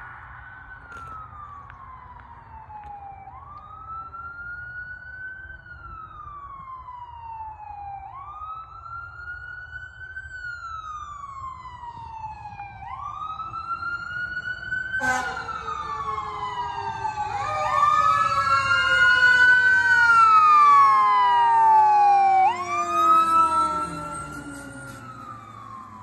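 Approaching 2017 Pierce Enforcer fire engine running a single electronic wail siren, which rises and falls about every four and a half seconds and grows steadily louder. About fifteen seconds in, the airhorns and the Q2B mechanical siren join with a sudden blast. Slower, lower siren tones then fall away beneath the wail, and it is loudest just before the engine passes.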